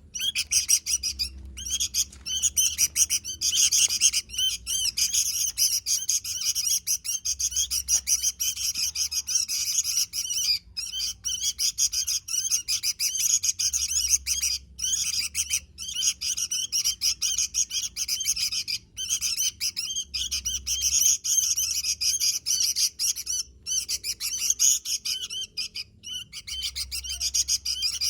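Sooty-headed bulbul (kutilang) singing in full voice: a dense stream of rapid high chirps and warbles that runs almost without pause, broken only by brief gaps.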